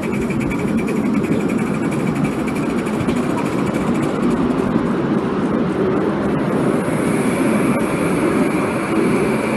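Maxitrak J94 'Austerity' 0-6-0 5-inch gauge live-steam model locomotive running under load: a steady, dense rumble with fast fine ticking at first, and a high hiss coming in about seven seconds in.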